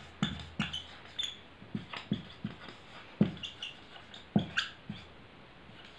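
Dry-erase marker writing on a whiteboard: a string of short squeaks and taps, one per pen stroke.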